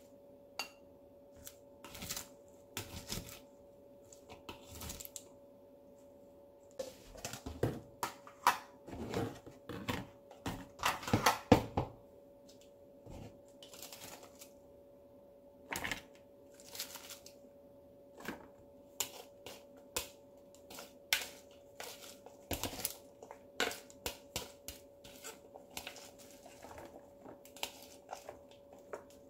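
Kitchen tongs clicking against bowls and a plastic food container while shredded cabbage salad is lifted and tipped across, with irregular clicks and rustles of the leaves, busiest in the middle. A faint steady hum runs underneath.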